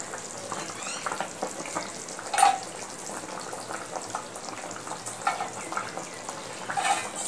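Thin fish curry boiling in a pan: a steady bubbling hiss with scattered pops, and a few brief louder pops along the way.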